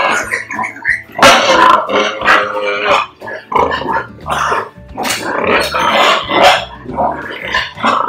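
Penned pigs squealing and grunting loudly, call after call with brief gaps between them.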